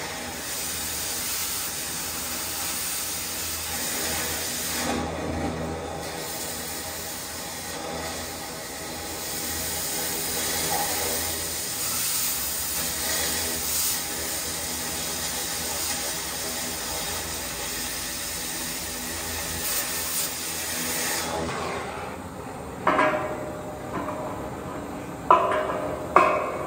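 Oxy-fuel cutting torch hissing steadily as it cuts through a steel beam; the hiss drops about three-quarters of the way through as the cut stops, leaving the lighter hiss of the still-lit flame. Near the end come three sharp, ringing metal knocks.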